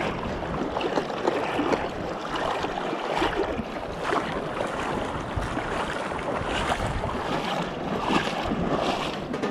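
Small waves washing and sloshing in shallow sea water right by the microphone, an even wash with irregular surges.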